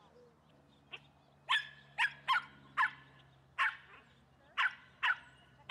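Dog barking in a run of about eight short, sharp barks, roughly one every half second, starting about a second in.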